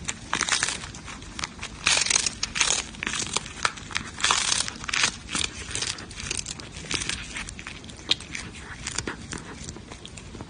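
A cat biting and chewing a dried fish held in its paws: irregular crisp crunches and crackles, heaviest in clusters about two seconds in and again around four to five seconds in.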